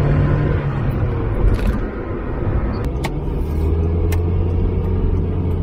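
1999 Mazda Miata's 1.8-litre twin-cam four-cylinder engine running as the car drives, heard from inside the cabin. The engine note steps down in pitch about a second in and again past halfway, as the car shifts up.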